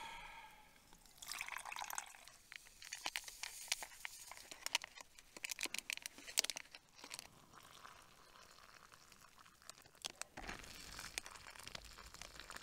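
A plastic sachet crinkling and ticking as it is shaken out into a collapsible cup. About ten seconds in, hot water is poured from a titanium mug into a plastic freezer bag of porridge oats.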